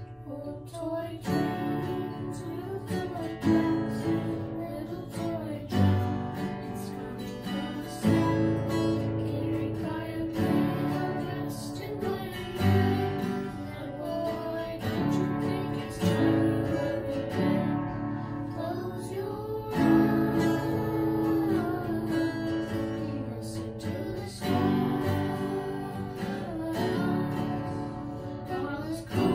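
Acoustic guitar strummed in chords together with an upright piano, the two playing a slow song as a duet.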